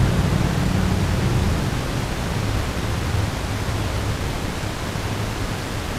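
Steady hiss with a low hum underneath, easing off slightly over the seconds: the noise floor of a night-vision camera's recording in a quiet, empty room.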